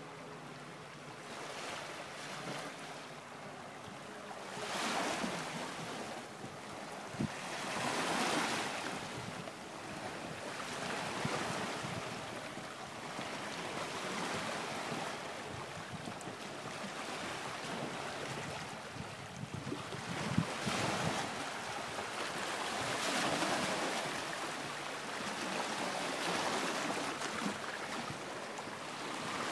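Small waves lapping and washing against the shoreline, mixed with wind buffeting the microphone, swelling and fading every few seconds.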